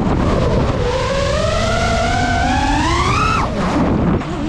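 5-inch FPV quadcopter's motors and propellers whining, picked up by the onboard GoPro over a rush of wind: the pitch climbs steadily for about three seconds, then drops sharply about three and a half seconds in as the throttle comes off.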